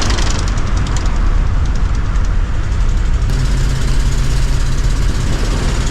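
Motor vehicle engine running steadily: a low, even hum under a loud rushing noise.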